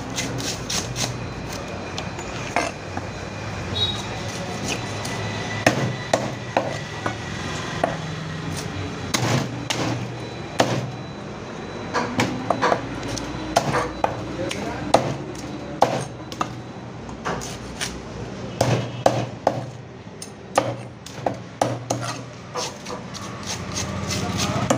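A large knife chopping through a trevally on a wooden block. The blade strikes the board in repeated sharp chops at an irregular pace, some in quick runs.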